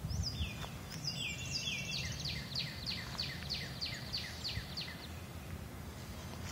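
A songbird singing a run of about a dozen quick whistled notes, each sliding down in pitch, about three a second, ending about five seconds in. Under it runs a steady low rumble on the phone's microphone.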